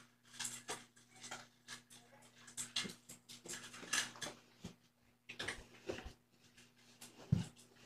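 A round fabric cat bed being lifted and folded: irregular soft rustles and small clicks, over a faint steady electrical hum.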